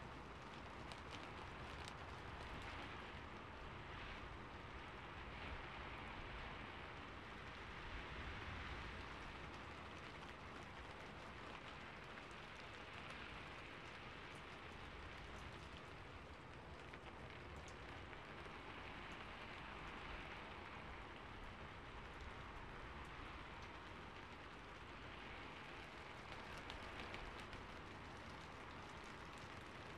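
Rain falling on a rooftop: a steady, soft patter with scattered drop ticks, swelling and easing gently every few seconds.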